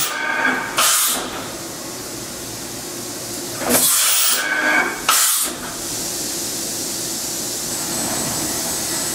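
Steady hiss and hum of running shop machinery, broken by three short, louder hissing bursts: one about a second in, and two more around four and five seconds in.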